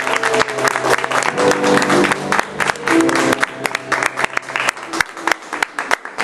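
Audience applauding over the closing notes of the music. The music stops about three-quarters of the way through, leaving the clapping.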